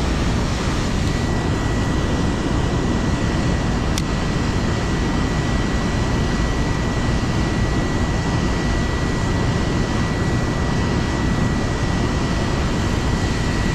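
Steady rush of river water pouring over a dam spillway: a dense, even noise, heaviest in the low range.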